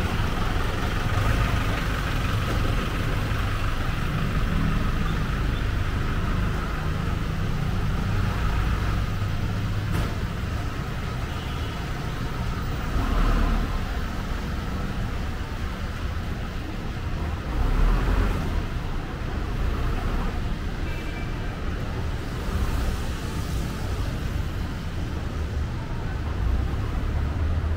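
City street traffic: vehicle engines running and idling under a steady low rumble, with a couple of louder swells partway through as vehicles pass close by.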